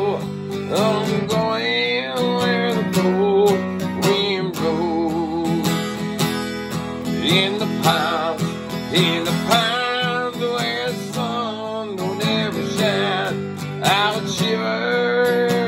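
Acoustic guitar strummed steadily in an instrumental passage of a slow folk song, with a wavering melody line held over the strumming.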